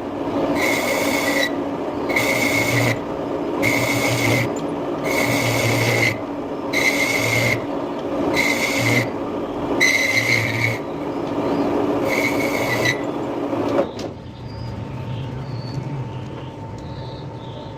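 Metal lathe running with a steady hum while something is worked against the turning cast iron part in regular scraping strokes, about one every 1.4 seconds, each with a high ring. The lathe cuts off suddenly about 14 seconds in.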